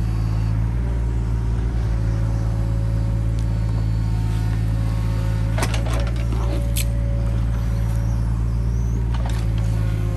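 Mini excavator's diesel engine running steadily under hydraulic load as its grading bucket works a soil bank, with a few sharp knocks about six seconds in.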